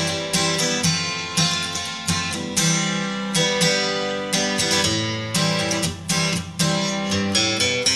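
Background music played on acoustic guitar: plucked notes and chords struck in a steady rhythm, each ringing on.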